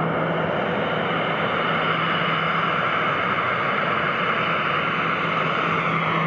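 Boeing 737's twin jet engines at taxi power: a steady rushing jet noise with a low hum underneath.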